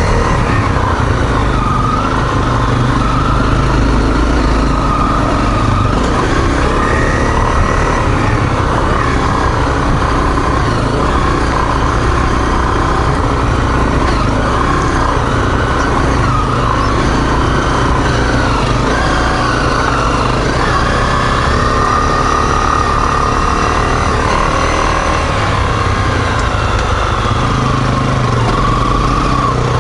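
Single-cylinder four-stroke dual-sport motorcycle engine running continuously while riding a rough trail, its pitch rising and falling with the throttle, with heavy low rumble underneath.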